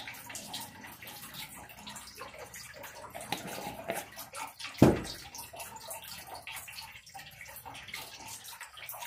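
Small scraping and clicking sounds of baking soda being added to white paint in a glass cup and stirred in, with one much louder dull knock about five seconds in.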